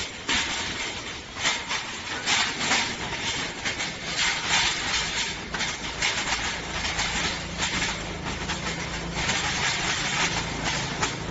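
Collapsible galvanized steel wire-mesh storage cage rattling and clanking as its mesh side panels are swung up and latched into place, in a string of irregular metallic jangles.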